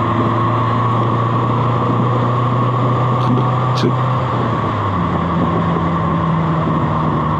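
1965 Lancia Fulvia's narrow-angle V4 engine pulling steadily while driving, with tyre and road noise. About two-thirds of the way through, its note steps up to a higher pitch and holds there.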